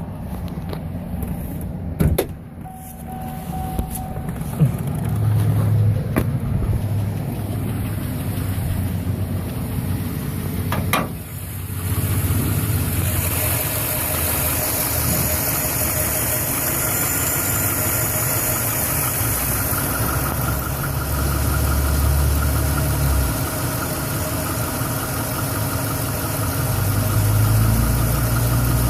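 Chevrolet Silverado's 5.3 L Vortec V8 idling roughly with a shudder and odd noises after a hard start. A few sharp clicks sound, the clearest about two seconds and eleven seconds in, and a steady hiss joins about twelve seconds in.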